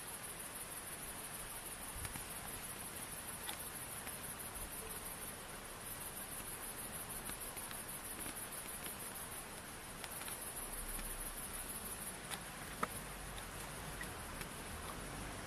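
Night chorus of crickets: a steady, very high-pitched, fast-pulsing chirring over a soft hiss, with one sharp click near the end.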